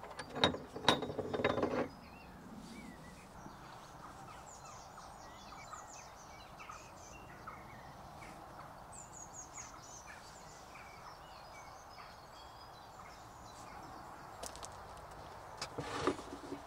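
Metal clanking and knocking as a steel chisel is handled and taken out of a bench vise, then birds chirping in the background. About sixteen seconds in come more knocks as old iron tools are set down on a wooden table.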